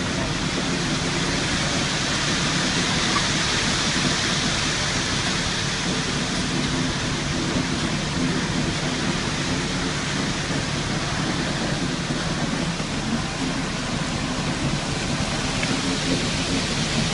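Concrete mixer truck running while wet concrete pours down its chute, a steady rushing noise over the low drone of the truck's engine.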